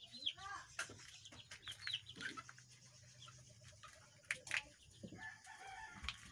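Chickens clucking in short repeated calls, with a couple of sharp clicks about four and a half seconds in.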